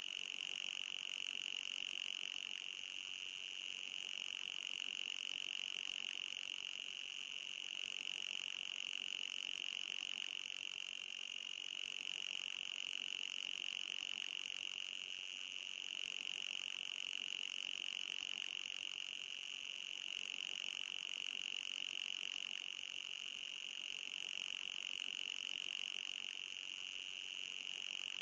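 Electronic anti-fly repellent sound: a steady, high-pitched synthetic whine with a fainter, higher tone above it, swelling and easing slightly in loudness every few seconds.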